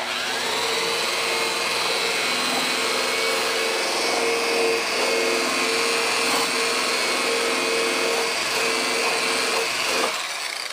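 Electric rotary buffer with a wool pad running steadily at speed, polishing rubbing compound into a plastic headlight lens, its motor giving a constant whine. Near the end the motor note stops and the sound falls away as the buffer winds down.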